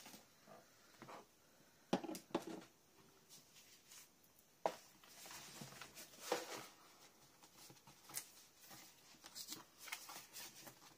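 Large sheets of cardboard being pulled out from under other craft supplies and laid down on a cutting mat: scattered light taps, scrapes and rustles, the sharpest about two seconds in and again near five seconds.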